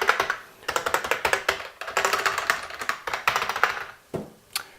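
Fast typing on a Lexmark-made Model M style keyboard with rubber-dome switches: a dense run of key strokes that stops a little before four seconds in, then a couple of single key presses near the end.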